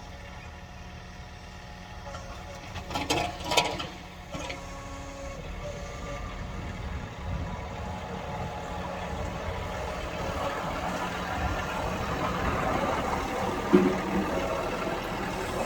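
John Deere 3046R compact tractor's diesel engine running and growing gradually louder, with a few sharp metallic clanks about three seconds in and a single loud knock near the end.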